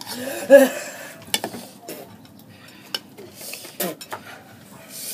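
A metal fork clinking and scraping against a ceramic bowl as noodles are stirred and lifted, with a few sharp separate clicks. A short vocal sound comes about half a second in.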